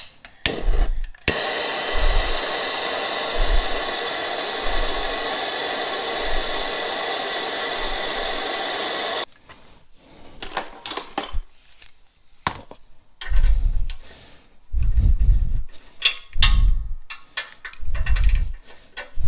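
A hand torch flame burning with a steady loud hiss for about eight seconds, heating the exhaust flange bolts to loosen them. It cuts off suddenly, and clicks, scrapes and short low knocks of wrench work on the bolts follow.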